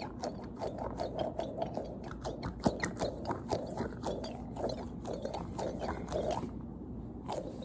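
Fidget toy being squeezed and pressed in the hands: a quick run of small crackling clicks, several a second, with one sharper click a little over two and a half seconds in, dying away about a second before the end.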